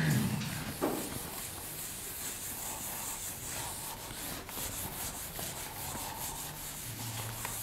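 Whiteboard eraser rubbing across a whiteboard in repeated wiping strokes, clearing marker writing. A light knock about a second in.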